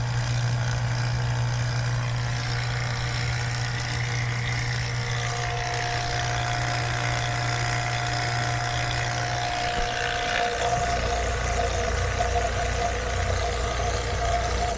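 Refrigeration vacuum pump running steadily while it evacuates a newly installed heat pump system, pulling it down to a deep vacuum. Its low hum shifts lower about ten seconds in, and a faint steady whine joins it about halfway through.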